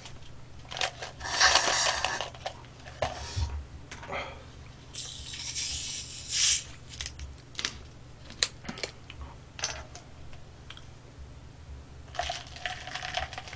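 Scattered clicks and short rustles of tableware and food being handled, then, about twelve seconds in, cola poured from a plastic bottle into a plastic cup, splashing and fizzing for a second or two.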